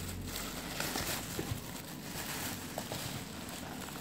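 Plastic bag rustling and a cardboard takeout box being handled, with a few light clicks and taps.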